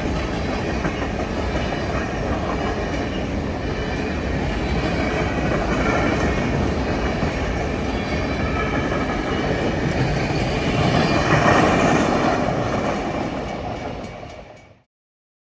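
CSX M426 manifest freight train's cars rolling past with a steady, heavy rumble and rattle of wheels on rail. The sound fades out near the end and stops.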